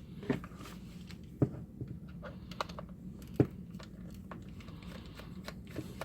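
Light clicks and ticks of a Phillips screwdriver working small screws out of a plastic multimeter case while the case is handled, with a few sharper knocks among them.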